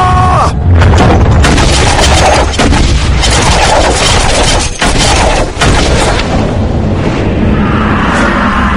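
Battle-scene sound mix from a film: heavy booms and impacts over a dense, loud din, easing after about six seconds.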